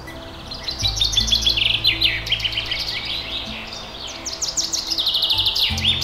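Songbirds chirping and trilling rapidly and continuously in high-pitched, overlapping phrases, over soft background music of low held notes.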